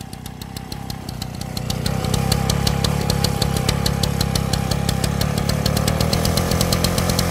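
Sachs Stamo 98 cc two-stroke engine on an old water pump running, picking up speed and getting louder over the first two seconds, then running steadily at the higher speed.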